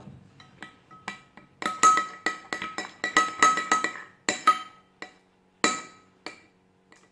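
A spoon clinking against a bowl as slime is stirred and salt is added, each strike ringing briefly. It starts with a quick run of strikes, then slows to a few single clinks near the end.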